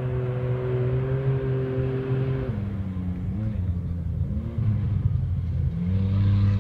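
A vehicle engine running steadily, dropping in pitch about two and a half seconds in, revving up briefly twice, then growing louder near the end.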